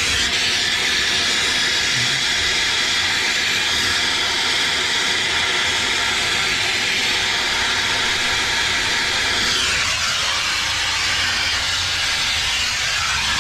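Turbo torch flame hissing steadily on a copper pipe joint being soldered, with a brief change in the hiss about ten seconds in.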